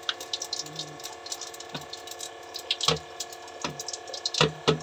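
Cumin seeds crackling in hot oil in a kadai: irregular sharp pops, a few louder ones in the second half, over a faint steady hum.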